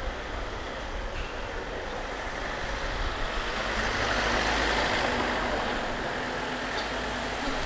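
Street traffic: the noise of a passing motor vehicle swells to its loudest about halfway through, then eases off a little.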